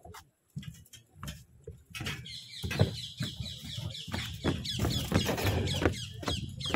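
Footsteps crossing a metal grating and then a floating plastic pontoon walkway, at first a few even steps, then from about two seconds in a denser, louder clatter of steps and knocks on the deck.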